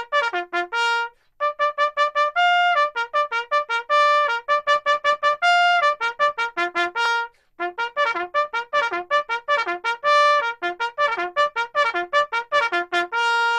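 Solo trumpet playing a fast bugle-style call of quick tongued notes, about five to six a second. It breaks off briefly about a second in and again about seven seconds in, and ends on a long held note.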